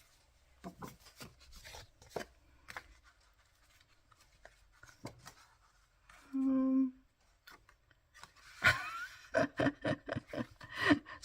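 Sheets of patterned craft paper being handled and shifted on a table: scattered light rustles, rubs and clicks, with a busier run of quick paper strokes near the end. A short hummed note sounds about six seconds in.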